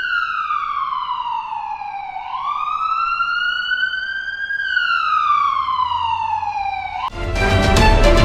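Ambulance siren wailing. Its pitch slides slowly down, up and down again, about two seconds each way. Music comes in near the end.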